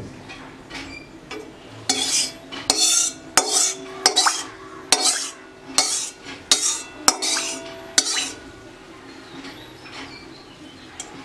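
Metal utensils clinking and scraping against metal cookware or a bowl. About nine sharp strokes come less than a second apart between about two and eight seconds in, some with a short metallic ring, and there are lighter clinks before and after.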